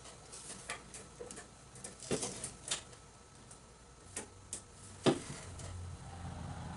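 Scattered light clicks and taps from a steel square and pencil being handled against the top of a steel door while hole positions are marked, with one sharper knock about five seconds in.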